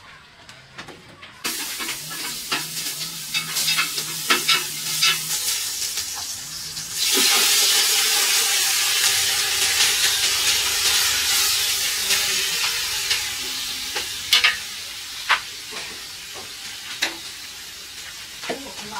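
Food sizzling in hot oil in a pan, with the stirring utensil clicking and scraping against it. The sizzle starts suddenly about a second and a half in, jumps louder about seven seconds in, then slowly dies down, with a few sharp knocks near the end.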